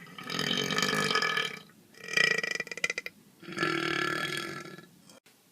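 A person belching three long burps in a row with short pauses between; the middle burp breaks into a quick rattle near its end.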